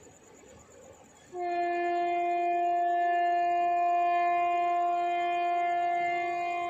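WAP-4 electric locomotive's horn sounding one long, steady blast that starts about a second in and is held for about five seconds.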